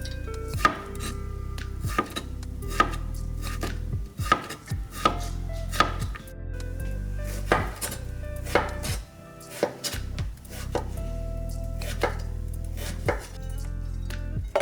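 Knife chopping on a cutting board: sharp, irregular strikes, roughly one a second, sometimes two or three in quick succession.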